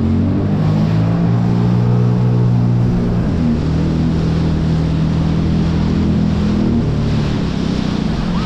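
Motorboat engine running steadily under way, its note shifting a little twice, over the rush of water and wind.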